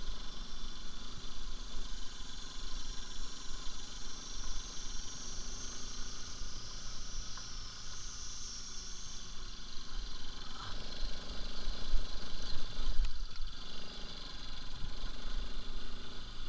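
Bajaj Pulsar RS200's single-cylinder engine running as the motorcycle rides along a rough dirt and gravel track, with wind noise on the microphone; it gets louder for a moment about twelve seconds in.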